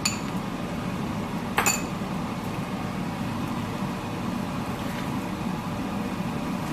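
Metal utensil clinking against a pan while stir-fried noodles are tossed: a clink right at the start, a louder cluster of clinks about a second and a half in, then a few faint taps. A steady low hum runs underneath.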